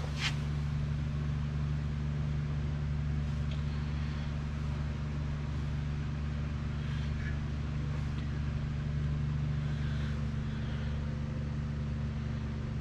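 A steady low machine hum, unchanging, with a few faint light clicks scattered through it.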